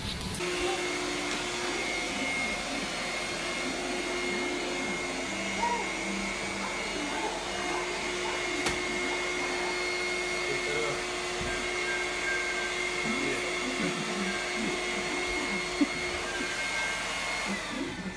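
Vacuum cleaner running steadily, a motor hum with a high steady whine that stops near the end.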